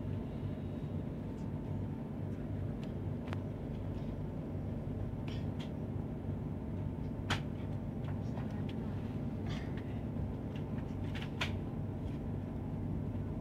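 Steady low hum and rumble inside a Trenitalia ETR 485 Pendolino passenger car rolling slowly along a station platform, with several steady tones in it. A few sharp clicks break in, the loudest about seven seconds in and another about eleven seconds in.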